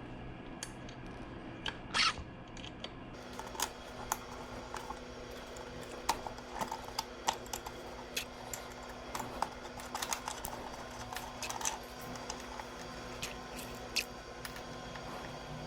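Scattered metallic clicks and taps of an Allen key working bolts loose and out of a motorcycle's rear fender mount, one louder knock about two seconds in, over a steady low hum.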